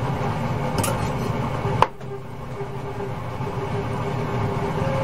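Kitchen knife cutting raw chicken thigh on a cutting board: a few faint clicks and one sharp knock just under two seconds in, over a steady low hum.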